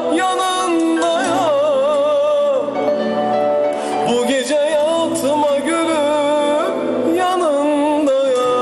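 A man singing into a handheld microphone over backing music, holding long notes whose pitch wavers up and down in ornaments.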